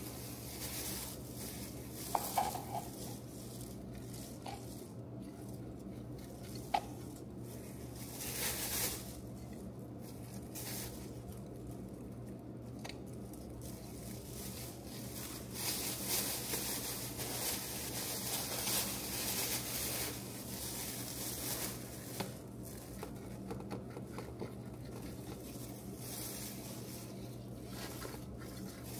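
Light handling sounds: a few small clinks and stretches of hissy rustling over a steady low hum.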